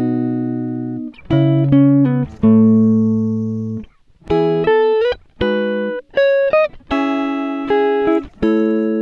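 Background music: a guitar plucking single notes and chords that ring out and fade, some notes sliding up in pitch.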